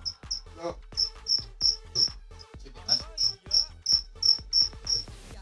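Insect chirping in a steady rhythm, about three short high chirps a second, with a brief break about two seconds in.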